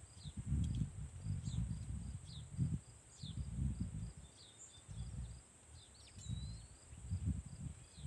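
Wind gusting on the microphone in uneven low rumbles, over small birds chirping: a run of short, evenly spaced chirps and several quick downslurred calls, with one rising call about six seconds in. A steady high insect drone sits behind them.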